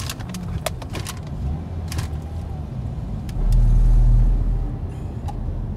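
Inside a moving car: a steady low rumble of road and engine noise, with a few sharp clicks in the first two seconds and a louder low rumble for about a second near the middle.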